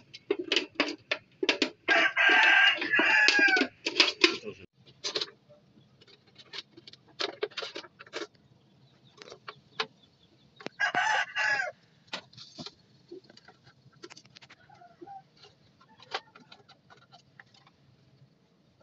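A rooster crowing about two seconds in and again briefly near the middle, over repeated sharp clicks and scrapes of a blade cutting through a metal can.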